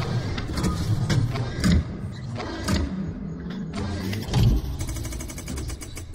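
Intro sound design of a vehicle engine rumbling, laid over sharp mechanical clanks and strikes, with a fast even run of clicks about five seconds in before the whole thing fades out.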